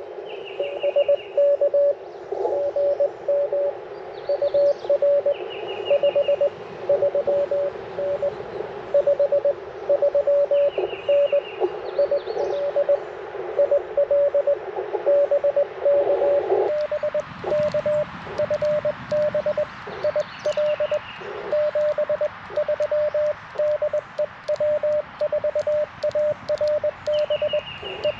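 Morse code from an Icom IC-705 transceiver: a single tone keyed on and off in dots and dashes. For the first sixteen seconds or so a narrow band of receiver hiss sits behind it; after that the hiss drops away and faint crackles come through.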